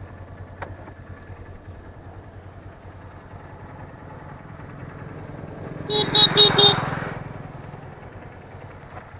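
Motorcycle engine idling quietly, and about six seconds in a horn sounds in four quick beeps.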